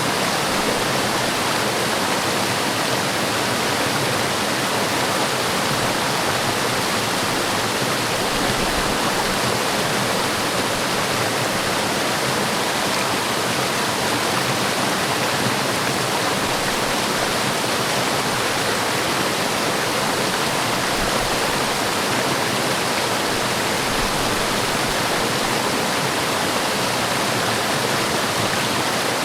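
Forest waterfall: a steady, unbroken rush of falling water.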